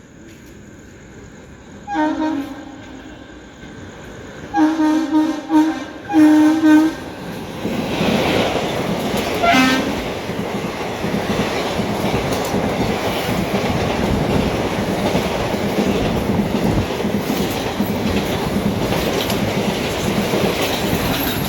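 Locomotive horn sounding one short blast, then a quick series of blasts; a few seconds later the train passes at speed, a steady loud rushing rumble with wheel clatter that lasts to the end.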